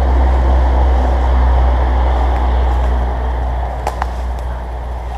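Steady low rumble and rustle of wind and handling noise on a hand-held camera's microphone as it is carried through woods. Two short sharp clicks come about four seconds in.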